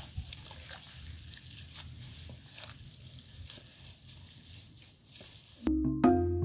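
Hands tossing and squeezing chopped leafy greens in an aluminium basin: soft rustling and crunching with faint scattered clicks. Background music comes back in near the end.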